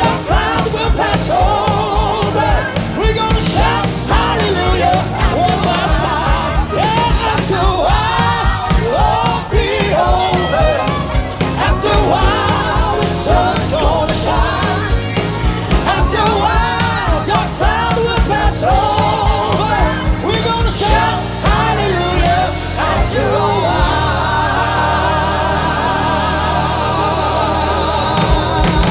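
Live gospel worship band and singers performing, with voices over drums and bass. Near the end the singers hold long notes.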